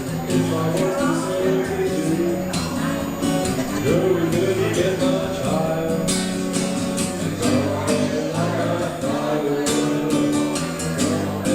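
Guitar-led music played live: an instrumental passage of a rock song with strummed chords and held notes.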